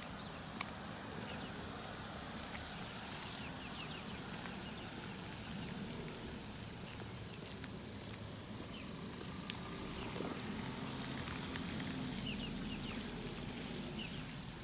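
Steady rushing noise of fast-flowing floodwater, with birds chirping briefly now and then.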